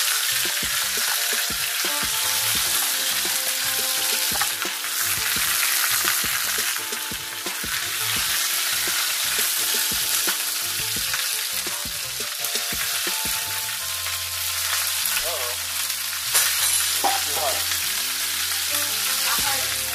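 Chicken pieces frying in a pan on the stove, sizzling steadily.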